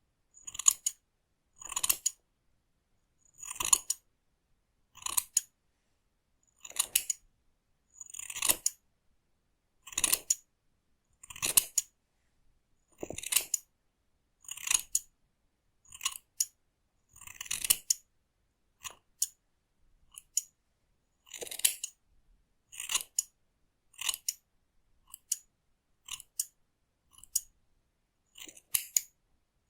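Scissors snipping through hair close to the microphone, one short crisp cut about every second and a half, coming a little faster near the end, with near silence between cuts.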